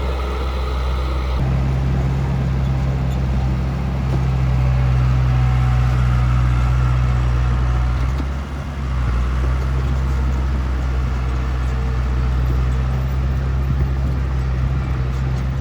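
Heavy diesel engine of an earthmoving machine running steadily with a deep hum. Its note shifts about a second and a half in and dips briefly a little past halfway.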